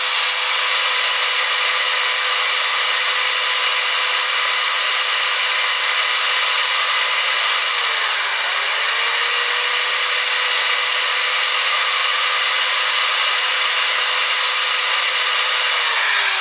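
Electric drill running a diamond-coated micro-grinder bit against glass, grinding out a hole in a bottle: a steady motor whine over a harsh high grinding hiss. The motor speed sags briefly about halfway through, then recovers. Near the end the drill is let off and winds down.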